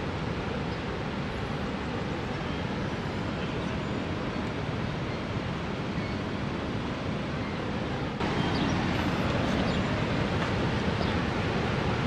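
Large waterfall: a steady rush of falling water that becomes abruptly louder about eight seconds in.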